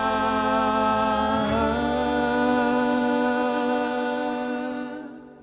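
Bluegrass band's closing vocal harmony: several voices hold one long 'ooh' chord. The lower part moves once about a second and a half in, and the chord fades out near the end.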